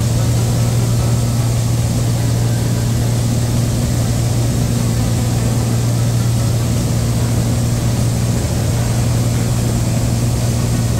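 Light airplane's piston engine and propeller droning steadily, heard from inside the cabin as an even, loud low hum.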